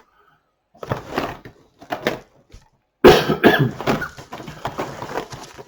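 A man coughing: a few short coughs, then a harder, longer coughing fit that starts abruptly about three seconds in and tails off.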